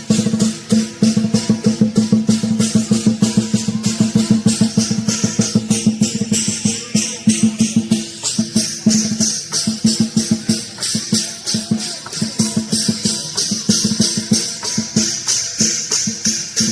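Lion dance percussion: a big drum with clashing cymbals and gong keeping up a fast, steady beat.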